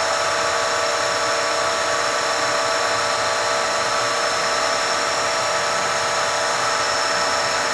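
OOYA RE2-1450D radial arm drill press with its spindle running idle, not cutting, at its top speed of 1985 RPM. The geared headstock gives a steady whine made of several steady tones, with no change in speed.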